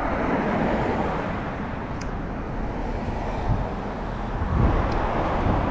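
Street traffic: cars driving along a city road, a steady rush of tyres and engines that swells a little as vehicles pass.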